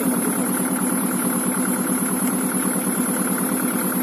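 Tractor engine running steadily with an even, rapid chug.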